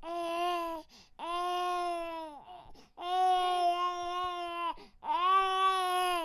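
Infant crying in four long wails, each held steady and then falling away at its end, with short breaths between them.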